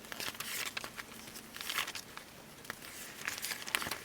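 Magazine paper rustling and crinkling as pages and cut scraps are handled, in a run of irregular crackles with a sharper one near the end.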